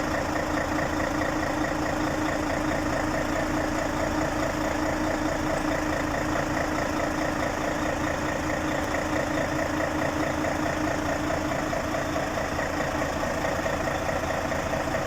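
Freshly overhauled Mercedes-Benz Actros 2040 truck diesel engine idling steadily.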